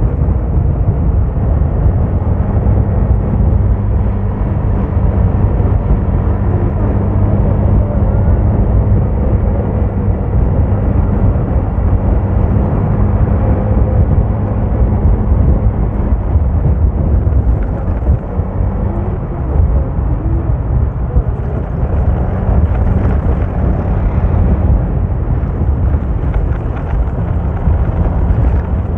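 A vehicle on the move: a steady engine drone with road and wind rumble underneath. The engine hum falls away for a few seconds past the middle, then comes back.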